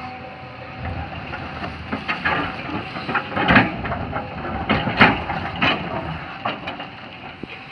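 Cat excavator digging soil: irregular crunching and scraping as the bucket cuts into the earth, over the machine's running engine. The loudest crunches come about three and a half and five seconds in.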